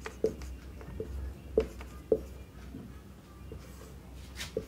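Marker pen writing on a whiteboard: a few short, separate strokes and taps of the felt tip against the board, over a low steady hum.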